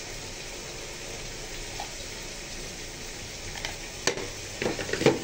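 Potatoes, peas and chicken frying in an aluminium pot on a gas burner, a steady sizzle, with a few light knocks near the end.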